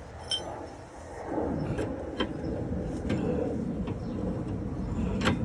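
Metal tools and car parts clinking during hand work on the vehicle: a sharp ringing metallic clink early, then a steady rough scraping noise with scattered clicks.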